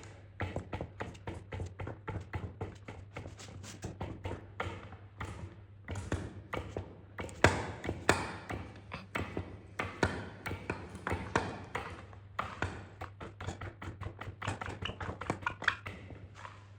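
Hollow hydraulic jack being worked to pull bushes into a boom pivot: a long irregular run of sharp metallic clicks and taps, several a second, over a low steady hum.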